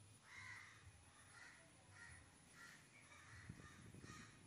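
Faint crows cawing: a string of short caws, about two a second, the first one the loudest.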